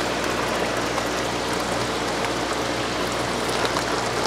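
Water running steadily out of a PVC pipe into a styrofoam shipping box, a fresh inflow that acclimates newly unpacked fish. A steady low hum runs underneath.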